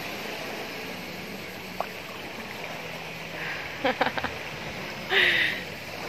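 Gentle seawater movement in a shallow bay, a steady wash, with a faint low boat-engine hum from about the middle and brief distant voices near the end.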